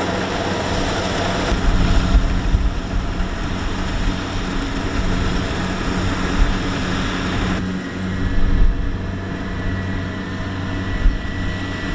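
Kubota DC-70X combine harvester's diesel engine running steadily with a low hum, with occasional low thumps. The higher hiss thins out about two-thirds of the way through.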